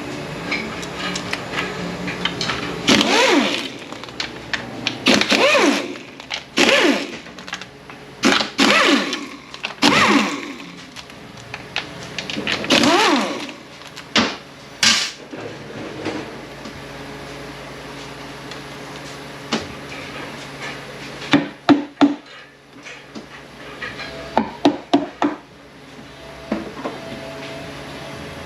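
Handheld power ratchet whirring in short bursts as bolts are run out of a transmission case, each burst's pitch dipping and rising as the motor spins up and slows. Later there is a cluster of sharp metallic knocks and clinks.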